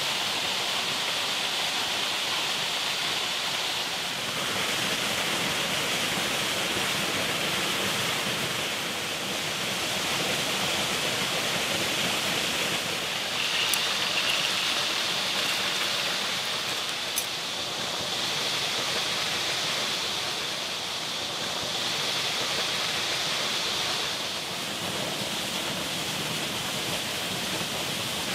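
Steady rushing of running water, with two sharp clicks about halfway through.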